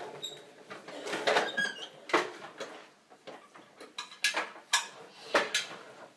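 Plastic toy garbage truck and its small bin being handled on a wooden floor: an uneven string of plastic knocks and clicks.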